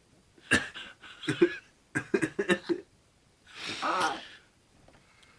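A man's short gasping, breathy vocal bursts with toilet paper rolled up his nose, working up to a sneeze, then a longer breathy sneeze-like burst about three and a half seconds in.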